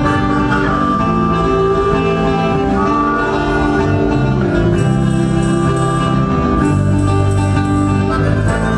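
A band playing live music at a steady level.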